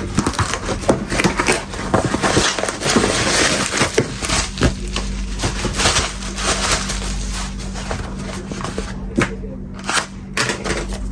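Parcel packaging being opened by hand: dense crinkling and rustling with many small clicks and knocks, thinning out about nine seconds in.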